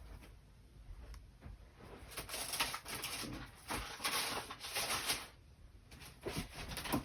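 Craft supplies being rummaged through: rustling and light knocks, loudest from about two to five seconds in.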